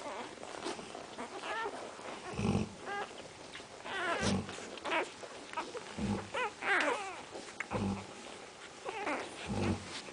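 Central Asian Shepherd puppies whining and yelping in short, high calls that slide up and down in pitch. A low thud recurs about every two seconds beneath them.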